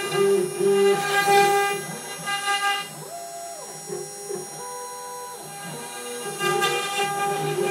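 CNC router cutting into a wooden board: the bit rasps through the wood over a steady whine of several held tones from the machine. For about three seconds in the middle the cutting noise drops away, leaving machine tones that step up and down in pitch.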